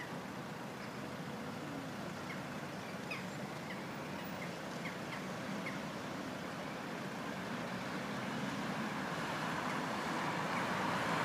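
Street traffic: a steady noise of tyres and engines that grows louder near the end as vehicles approach, with a few short bird chirps in the first half.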